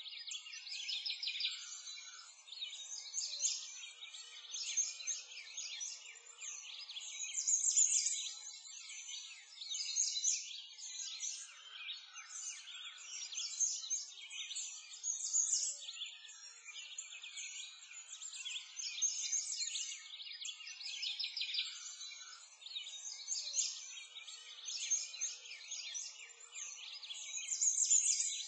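A chorus of many small birds chirping and trilling at once, high-pitched, swelling and fading every few seconds.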